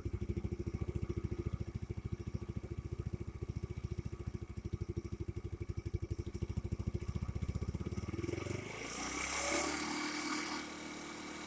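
Small 50cc GY6-type four-stroke scooter engine idling with a fast, even putter while warming up after a fuel drain and new spark plug. About three-quarters of the way through the putter gives way to a brief rustling clatter and then a steady low hum.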